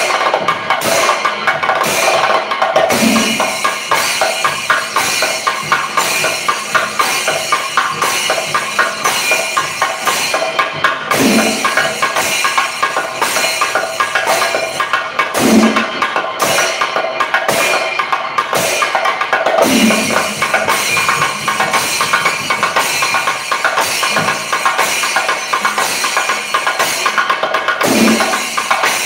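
Chenda melam: an ensemble of Kerala chenda drums played with sticks in a dense, unbroken stream of rapid strokes, with a deeper stroke standing out now and then.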